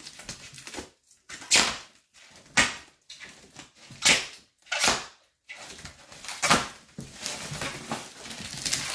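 Black plastic stretch wrap and tape being ripped and cut off a shipping box: a series of short tearing rips about a second apart, with crinkling of the plastic between them.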